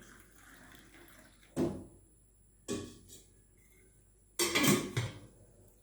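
Kitchen utensils clinking and knocking. There are two short knocks about a second apart, then a louder clatter of several strikes about four and a half seconds in.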